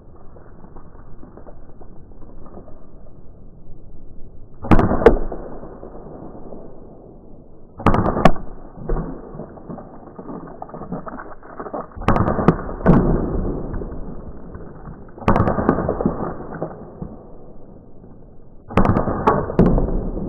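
CO2-powered .177 BB revolver firing: a string of sharp cracks every few seconds, some single and some in quick pairs or threes, each with a short ringing tail.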